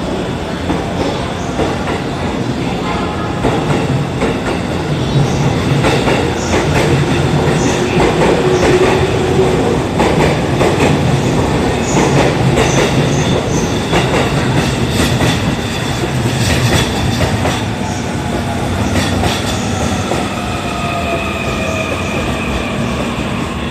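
E257 series 5000 electric train pulling out and gathering speed past the platform, its wheels clicking over the rail joints. A rising whine comes in over the second half.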